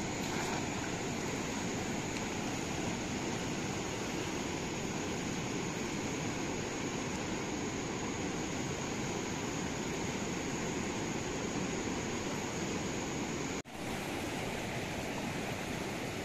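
Steady rushing of a wide, fast-flowing river, an even wash of water noise with a split-second dropout near the end.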